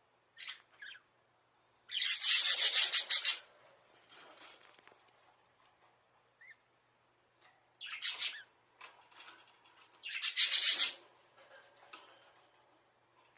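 Budgerigars in their cage: three loud, harsh, raspy bursts, at about two, eight and ten seconds in, each lasting a second or so, with a couple of short ones at the start and faint scratching between.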